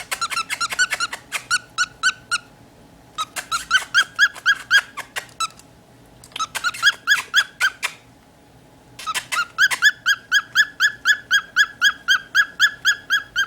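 Cockatiel chirping in rapid strings of short, repeated calls, about five a second, in four bouts with brief pauses between.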